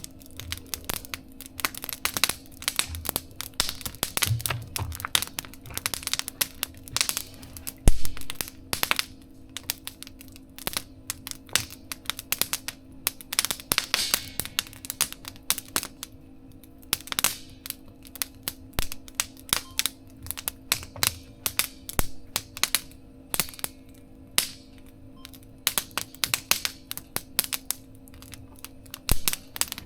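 Wood fire crackling and popping in a mesh fire-pit stove, with irregular sharp snaps, a louder pop about eight seconds in, and a faint steady hum underneath.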